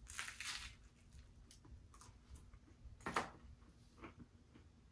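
A person biting into a slice of cheese pizza and chewing it close to the microphone: one short bite at the start, another about three seconds in, with faint chewing clicks between.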